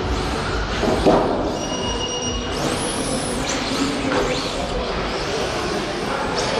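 Several 1:10-scale electric RC drift cars running on a carpet track, their motors whining up and down in pitch over a steady wash of tyre and room noise. There is a short knock about a second in.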